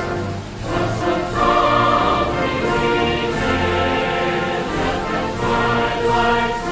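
Background music: a choir singing an anthem in long held notes.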